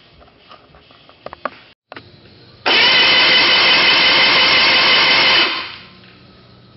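Outboard motor being cranked over by its electric starter for about three seconds during a compression test, with a compression gauge fitted in a spark-plug hole. It stays steady throughout and then stops, with a few small clicks before it.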